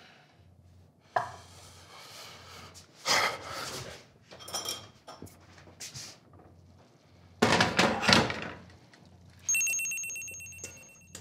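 Cookware being handled on a stovetop: a skillet lid lifted off and utensils knocking against the pan, in a series of separate clatters with the loudest about eight seconds in. Near the end comes a high ringing tone that fades out over a second or so.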